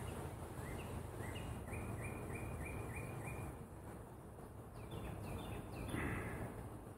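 Honeybees humming low and steady around an opened hive. Over it a songbird sings a run of short repeated chirps, about three a second, then a shorter, higher run about five seconds in.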